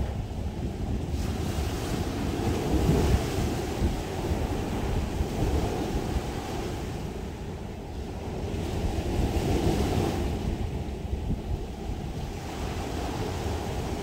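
Small sea waves breaking and washing up a sandy beach, the wash swelling twice, a few seconds in and again past the middle. Wind rumbles on the microphone throughout.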